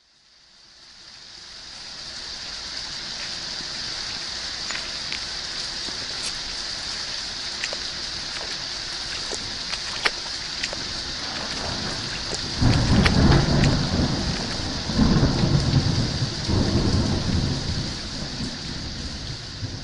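Steady rain falling, fading in over the first couple of seconds, with scattered drips. About two-thirds of the way through, two low rolls of thunder rumble in a couple of seconds apart, the loudest sound here.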